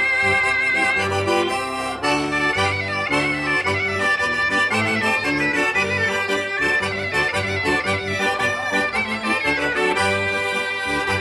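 Piffero and accordion duo playing a traditional Four Provinces dance tune. A high, reedy melody line with vibrato runs over the accordion's chords and regular bass notes.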